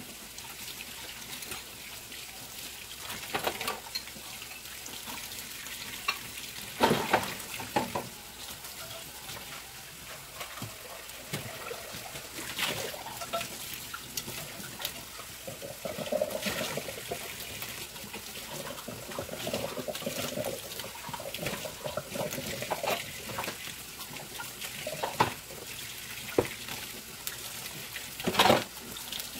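Chopped onions sizzling in a hot frying pan: a steady frying hiss with scattered louder pops and crackles, the loudest about seven seconds in and just before the end.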